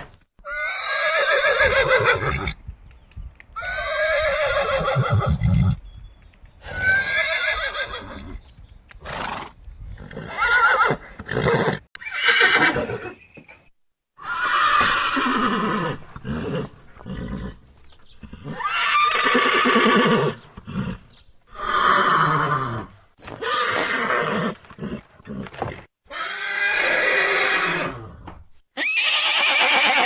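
Horses neighing: a long series of whinnies, each a second or two long and falling in pitch, separated by short pauses.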